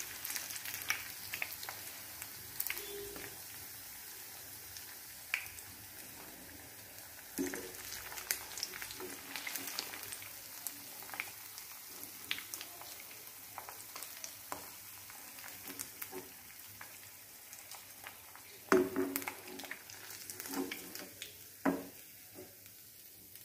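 Breaded paneer fingers frying in hot oil in a nonstick pan: a faint crackling sizzle that slowly quietens. A slotted steel spoon knocks against the pan a few times as the pieces are lifted out, loudest a little past two-thirds of the way in.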